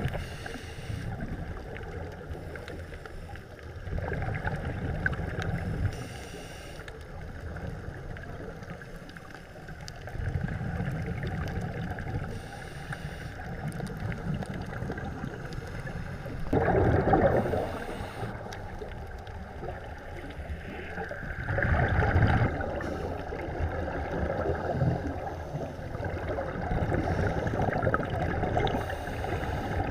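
Scuba divers breathing through their regulators underwater: exhaled bubbles gurgle out in slow swells every five or six seconds, over a steady rushing hiss.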